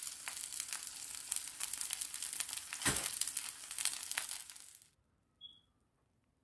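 Egg frying in hot oil in a pan, sizzling with many small crackling pops. The sizzle fades out a little over two-thirds of the way in, and a brief faint high tone follows.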